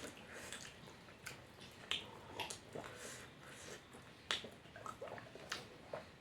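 Faint close-up eating sounds of a person eating fish curry: scattered short mouth smacks and clicks, about a dozen, at uneven intervals.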